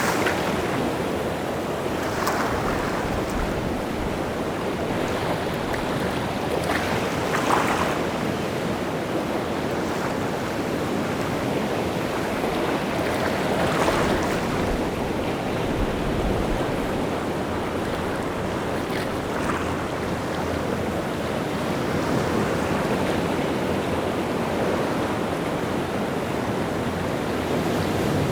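Rough sea surf breaking and washing continuously on the shore, the water churned up by strong wind, with a few louder splashes standing out now and then.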